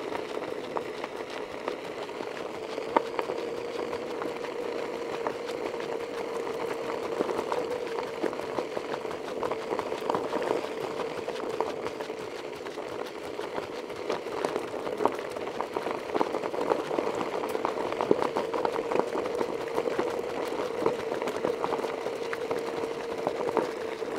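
Steady motor hum at an even pitch, with gravel and small stones crackling irregularly under the wheels of a vehicle rolling along a rocky dirt road.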